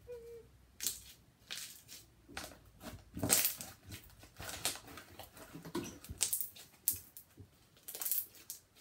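Soft purple slime made with glue and Dial soap being stretched, scraped up off the table and squeezed in the hands, giving a string of irregular wet squelches and crackling pops.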